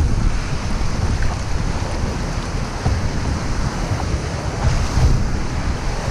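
Breaking surf and churning whitewater washing around the camera at water level, with wind buffeting the microphone.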